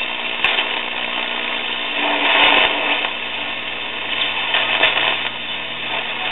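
Shortwave static and noise from the speaker of a Hallicrafters S-200 vacuum-tube receiver as its dial is tuned between stations, swelling and fading with a steady low hum beneath.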